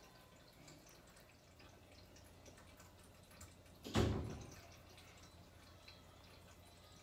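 Faint scattered clicks and taps of handling, with one dull thump about four seconds in.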